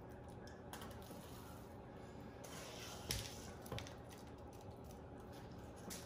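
Wooden spoon scooping a thick seed-and-tallow suet mix in a stainless steel bowl and dropping it into plastic-wrap-lined muffin cups: a few faint clicks and soft scrapes, the clearest about three seconds in.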